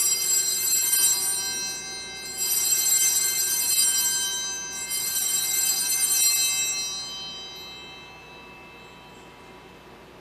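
Altar bells rung three times, about two and a half seconds apart, marking the elevation of the consecrated host. The last ring fades away over a few seconds.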